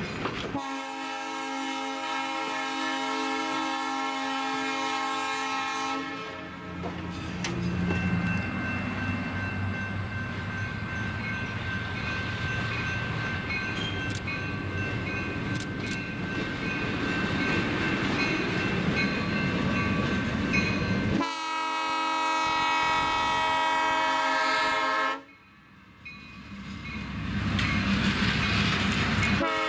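A diesel locomotive's horn blows two long blasts, the first about five seconds long near the start and the second about four seconds long past the middle. Between the blasts the passing train's engine and wheels rumble and clatter.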